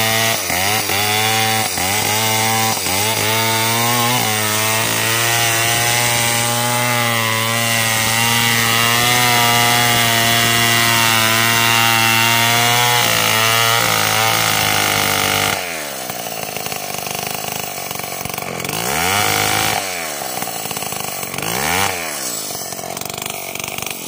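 Stihl chainsaw with a 36-inch bar cutting coconut-palm lumber. Its engine revs up and down several times at first, then holds steady at full throttle in the cut. About fifteen seconds in it drops back off the throttle and is blipped up and down twice.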